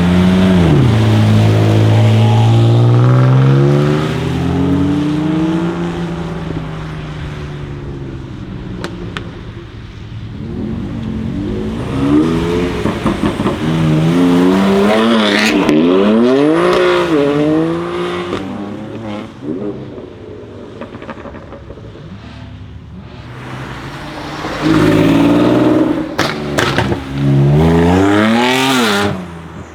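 BMW M2 Competition's twin-turbo straight-six, fitted with TTE740+ turbos and an Akrapovic exhaust, revving and accelerating in several loud bursts, with the pitch rising and falling. Sharp exhaust pops and crackles come between the revs.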